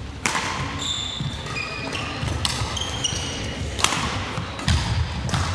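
Badminton rally: a shuttlecock struck sharply by rackets about four times, with shoes squeaking in short high chirps and feet thudding on the wooden court floor.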